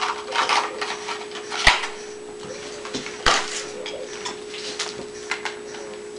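Clattering handling noises with two sharp knocks about a second and a half apart, over a steady hum.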